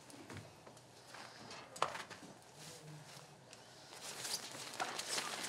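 Faint rustling of a Coleman nylon dome tent's fabric as the poles are worked through its sleeves, with a single sharp click about two seconds in and busier rustling near the end.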